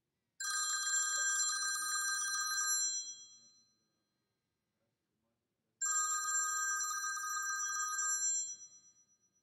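Smartphone ringing with an incoming call: a trilling ringtone, two rings of about two and a half seconds each, about three seconds apart.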